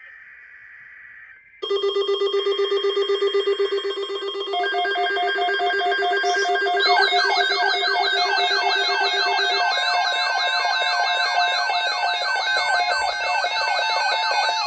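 Layered electronic alarm and siren tones. A faint hiss gives way about a second and a half in to several steady pulsing tones, more tones join a few seconds later, and from about halfway through a rapidly repeating rising siren sweep sounds over them.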